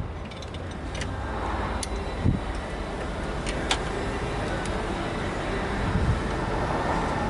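Steady low rumble of a motor vehicle, swelling slightly near the end, with a few sharp clicks.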